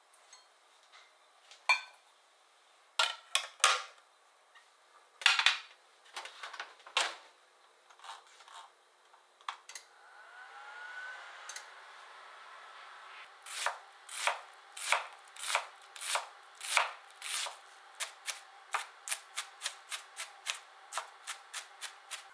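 Scattered clinks and knocks of a steel bowl against a glass baking dish as potato and zucchini pieces are tipped in, then a microwave oven humming briefly. From about halfway in, a knife chops onion on a cutting board, at first about one and a half strokes a second and quickening to about three a second near the end.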